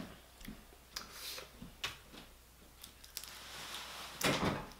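Scattered small clicks and crackles of boiled crawfish shells being broken and picked apart by hand, with a louder rustle about four seconds in.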